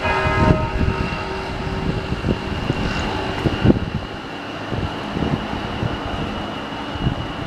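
A St Paul's Cathedral bell struck near the start, its ringing hum fading over about three seconds, above a steady low rumble of wind and street noise.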